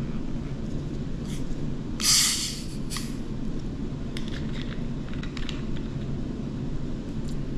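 Carbonation hissing out of a 2-litre plastic bottle of Canada Dry ginger ale as its screw cap is loosened, a loud burst of about a second. Faint clicks of the plastic cap turning follow, over a steady low hum.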